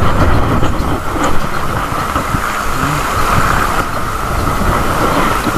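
Strong wind blowing on the microphone: a loud, steady rushing with a gusty low rumble.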